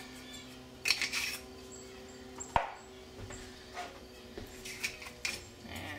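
Soft rubbing and scraping as dried basil is sprinkled by hand into a stainless steel saucepan of thick sauce, with one sharp click about two and a half seconds in. A faint steady hum runs underneath.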